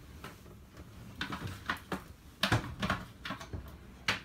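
Several light knocks and clicks of small objects being handled on a worktop, irregularly spaced, the loudest about two and a half seconds in and just before the end, over a faint low hum.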